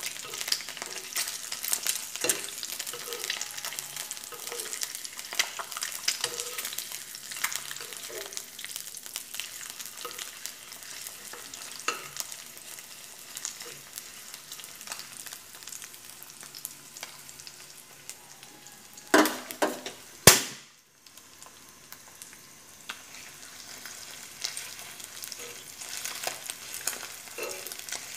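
Egg frying in oil in a nonstick pan: a steady sizzle and crackle, with a metal spoon scraping and tapping against the pan. Two loud knocks come about two-thirds through, then the sound drops out for a moment before the sizzle returns.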